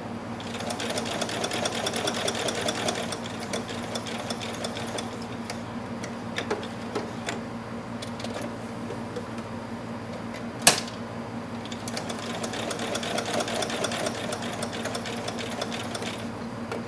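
Singer Quantum 7350 electronic sewing machine stitching felt onto fabric in fast runs, near the start and again in the last few seconds, with slower, lighter stitching between. One sharp click about ten seconds in is the loudest sound.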